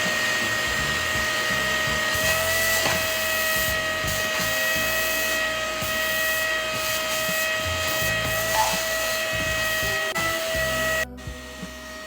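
Hoover CleanSlate portable spot cleaner running, its motor giving a steady whine over a rushing suction noise, dropping away sharply near the end.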